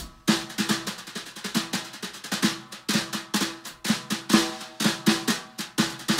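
Jazz drum kit playing alone in a solo break: quick, irregular snare strokes and rolls mixed with bass drum hits, with no bass or piano under it.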